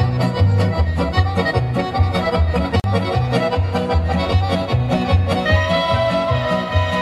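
Serbian folk dance music led by accordion and fiddle over a steady, pulsing bass beat.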